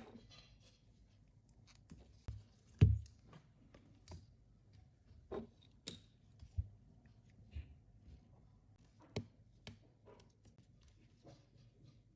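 Scattered small clicks and taps of tools and plastic parts being handled as a Sony Ericsson K800 mobile phone is worked on, with one louder knock about three seconds in.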